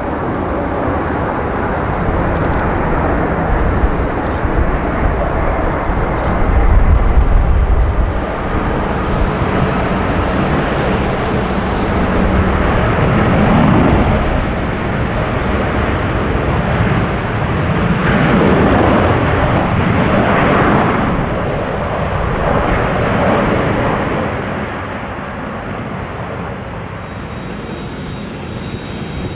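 A large jet airliner passing low on its landing, its engine and airflow noise a continuous rumble that is loudest about seven seconds in, swells again several times and then slowly fades.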